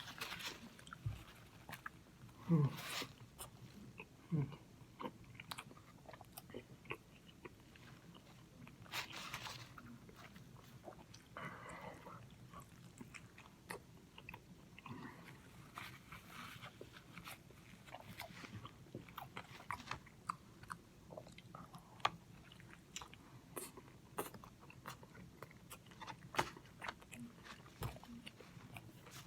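Close-miked eating of a crispy fried buffalo chicken sandwich: bites and chewing with many irregular short crunches and mouth clicks.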